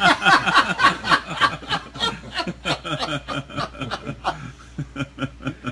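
Several men laughing: a loud burst of laughter that trails off into scattered chuckles.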